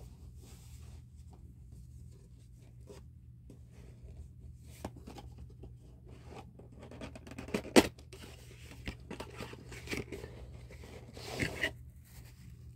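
Hands handling a rigid cardboard gift box: soft scraping and rubbing as the lid is worked off, a sharp knock about eight seconds in, and a longer sliding scrape near the end.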